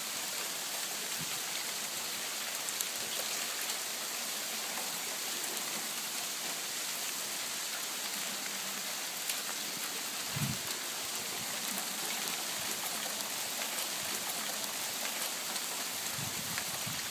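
Small hailstones, about gumball size, falling hard with rain, making a steady hiss with faint scattered ticks as they hit the house and ground. There is a brief low thump about ten seconds in.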